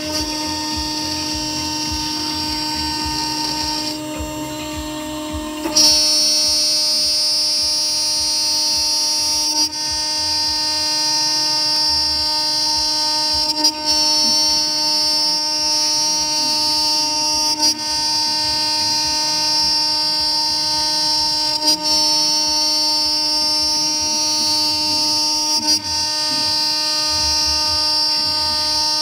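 A 2.2 kW, 24,000 rpm CNC router spindle with an end mill milling a pocket in 20 mm aluminium plate: a steady high whine over the cutting noise. It drops for a moment about four seconds in, returns louder about six seconds in, then breaks briefly about every four seconds.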